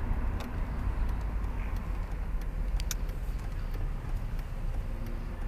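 Convertible Mercedes-Benz rolling slowly with the roof down: a steady low engine and road rumble mixed with open-air wind noise, with a few faint clicks.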